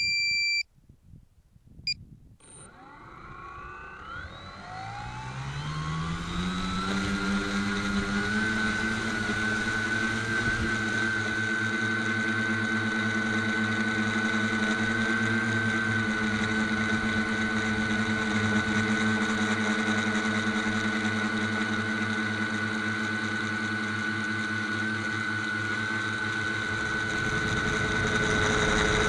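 Tricopter's electric motors and propellers spinning up from rest, rising in pitch over about five seconds, then running at a steady high whine over a low drone in flight, heard from a camera mounted on the craft. Two short electronic beeps come just before the motors start.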